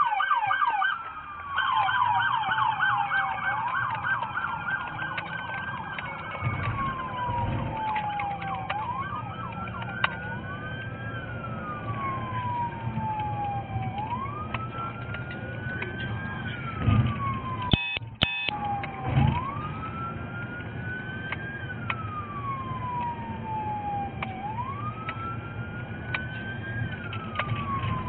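Police car siren on a moving patrol car, switching from a rapid yelp in the first few seconds to a wail that rises quickly and falls slowly about every four seconds. Beneath it runs the steady rumble of the car on the road.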